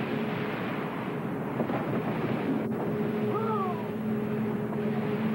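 Rushing surf and wind noise over the steady hum of a 44-foot motor lifeboat's engine as it runs through breaking waves. A single short falling cry comes a little past the middle.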